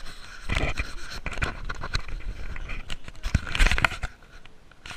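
Irregular scraping and rustling with heavy low knocks from a jostled body-worn camera rubbing and bumping as it moves, loudest about half a second in and again around three and a half seconds in.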